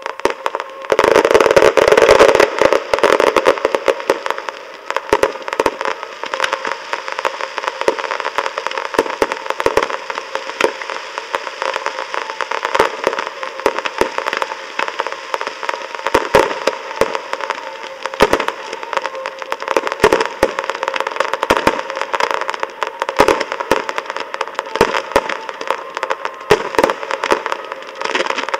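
Aerial fireworks going off in rapid, irregular succession: a dense run of bangs and crackling, loudest from about a second in.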